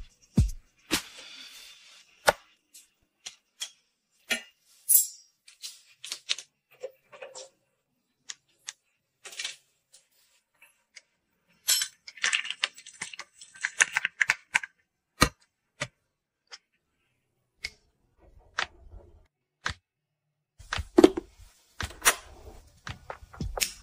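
Scattered small clicks and taps of a bowl and utensils being handled. About halfway through there are a few seconds of crinkling and cracking as cooked crayfish are peeled with disposable plastic gloves. Near the end there is a busier run of knocks.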